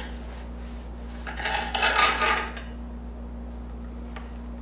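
Chicago Cutlery DesignPro 8-inch serrated bread knife sawing through the crust of a French bread loaf: one rasping cut, about a second long, starting about a second in.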